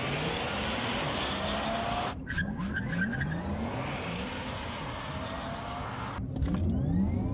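Porsche Taycan Turbo S accelerating away, its electric drive sound (a futuristic 'Jetson'-like whir) rising in pitch in repeated sweeps over tire and road noise. The sound breaks off abruptly about two seconds in and again about six seconds in, then resumes.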